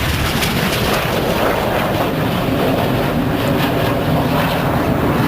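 Steady rumble of BAE Hawk T1 jet engines flying a display overhead.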